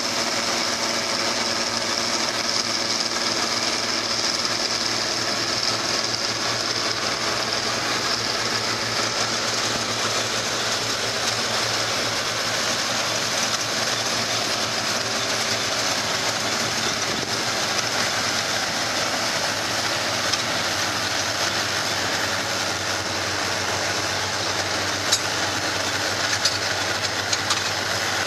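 New Holland tractor and Krone BiG Pack large square baler running steadily while baling straw, a continuous engine and machinery drone. A few sharp clicks come near the end.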